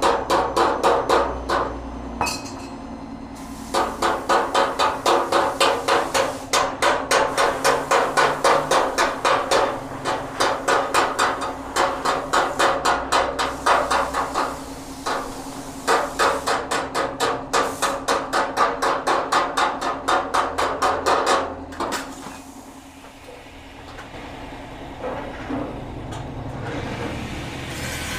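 Ball-peen hammer striking the sheet-steel lip of a car fender against a hand-held stone used as a dolly, in quick, even runs of about four blows a second with short pauses, reshaping the repaired lower edge. Hammering stops about three-quarters of the way through, leaving a steady low hum.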